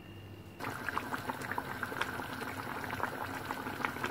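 Thick fish curry boiling in an open pot, with bubbles popping in quick, irregular succession as the gravy reduces. The bubbling starts suddenly about half a second in.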